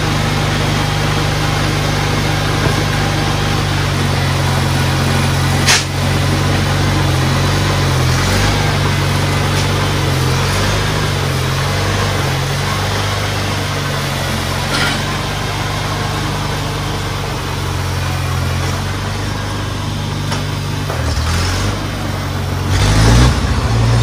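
1960 International Harvester Cub Lo-Boy's small four-cylinder L-head engine running steadily at low speed as the tractor is driven off. There is a single sharp click about six seconds in, and the engine sound shifts and grows fainter near the end as the tractor moves away.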